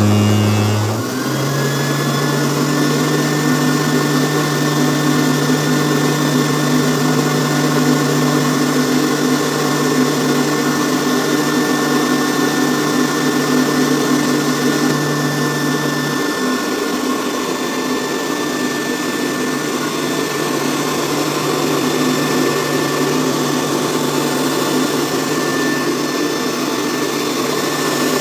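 Homemade electric blower running steadily: a motor hum with a rush of air as it blows a jet up its pipe. About a second in, the hum steps up in pitch, then holds level.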